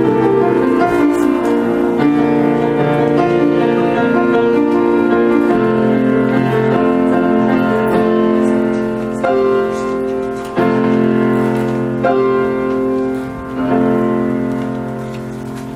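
Slow keyboard music played as held chords, changing every second or two, fading toward the end.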